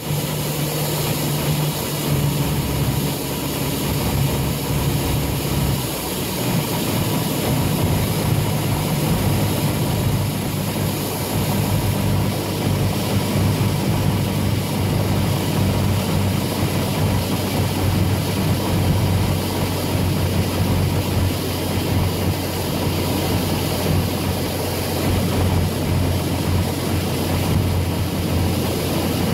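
Single-engine Cessna's piston engine and propeller running steadily in flight, heard from inside the cockpit as a low, even drone.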